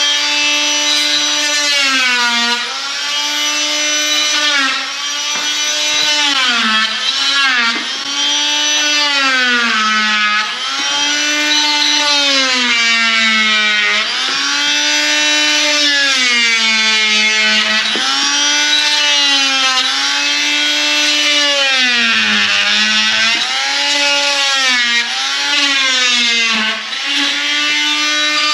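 RotoZip spiral-cut rotary tool running at high speed while trimming drywall. Its whine drops in pitch each time the bit bogs into the sheetrock and climbs back as it frees up, over and over.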